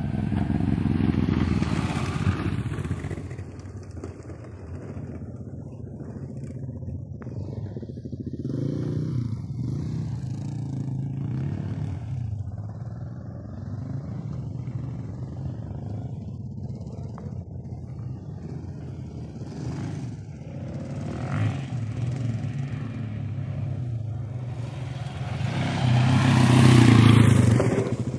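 Dirt bikes riding a motocross track: one passes close by in the first few seconds, others are heard farther off with their engines rising and falling in pitch, and another passes close near the end, its engine note dropping as it goes by.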